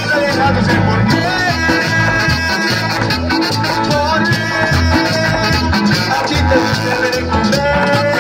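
A live Latin dance band playing loudly through a PA system: a horn section with trombone and saxophone, bass and percussion keeping a steady beat, and a male singer singing into a handheld microphone.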